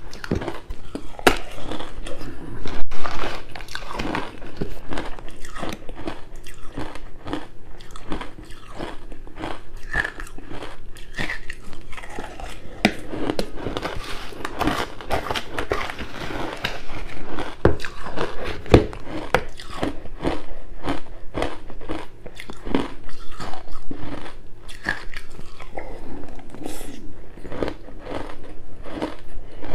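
Close-up biting and chewing of crunchy ice, a steady run of sharp irregular crunches and crackles.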